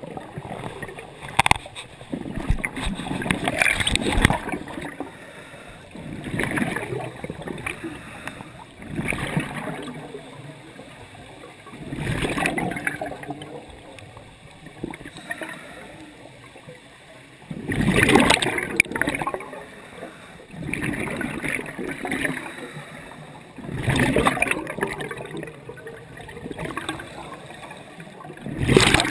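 Scuba regulator exhaust bubbles from a diver breathing underwater, a gurgling rush every few seconds with each exhalation, heard through a GoPro dive housing. A low hiss runs between the breaths.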